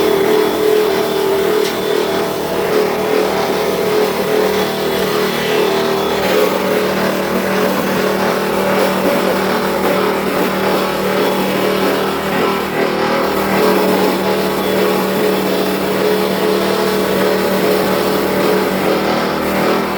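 Log-grating wood crusher driven by a 15 HP three-phase electric motor, running steadily while grinding wood into sawdust: a steady hum under a dense grinding noise.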